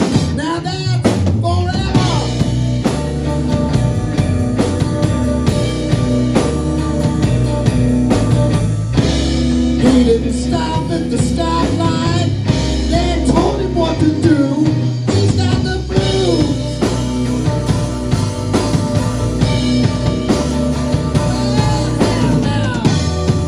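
Live blues-rock trio playing: electric guitar, electric bass guitar and drum kit together at full band volume.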